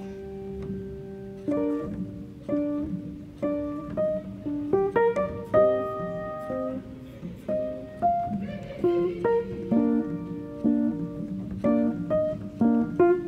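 Instrumental background music: a guitar picking out a slow melody, one note at a time, each note ringing and fading.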